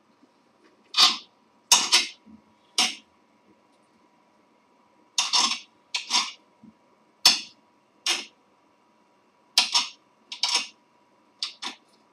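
Kitchen knife cutting pineapple into small pieces on a cutting board: about fifteen short chopping strokes at irregular intervals, some in quick pairs.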